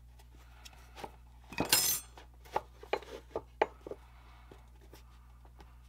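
Steel square and styrene strip handled on a wooden workbench: a short scrape about a second and a half in, followed by a few sharp metallic clicks.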